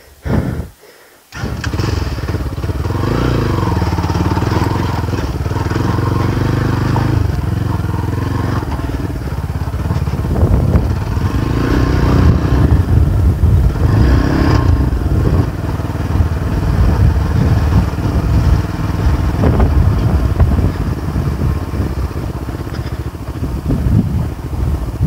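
Motorcycle engine running steadily under load while riding a rough offroad track. It starts about a second in, after a short quiet gap.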